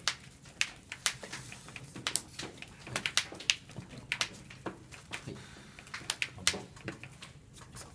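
Yu-Gi-Oh cards being handled and put down on the playmats: a run of irregular, sharp clicks and taps.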